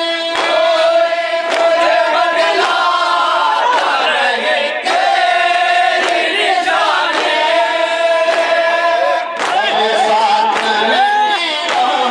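A group of men chanting a noha (Shia lament) with no instruments: a lead reciter sings into a microphone and a chorus of men sings with him, holding long notes. Regular hand strikes on the chest (matam) keep time underneath.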